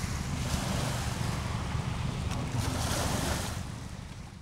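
Small waves washing onto a sandy shore, with wind buffeting the microphone in a low rumble. The sound fades somewhat near the end.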